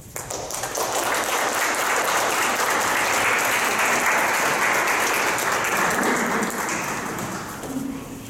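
Audience applauding: it breaks out suddenly, holds steady for about six seconds, then dies away near the end.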